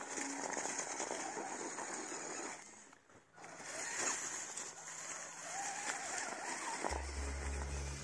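Carson Mountain Warrior 1:12 RC crawler driving over dry leaves and twigs, its tyres crackling and rustling through the litter, with the whine of its small motor rising and falling. The crackling drops away for a moment about three seconds in, and a low steady hum comes in near the end.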